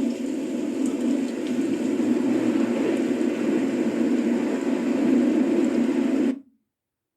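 A steady rushing noise, strongest in the low-mid range with a fainter hiss above, that cuts off abruptly about six seconds in, leaving dead silence.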